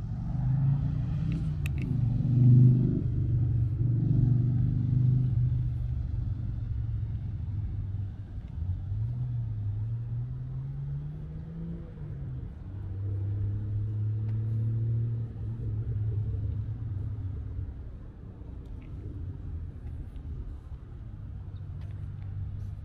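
Car engines running at low revs, with one engine note rising slowly and then dropping back about halfway through.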